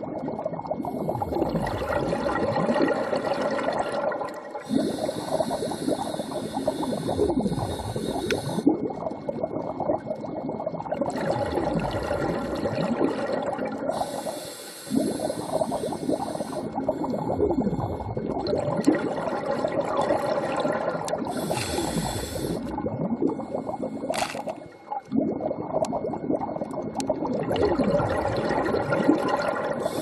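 Scuba diver breathing through a regulator underwater: hissing inhalations and long bursts of exhaled bubbles gurgling, in a cycle that repeats every few seconds.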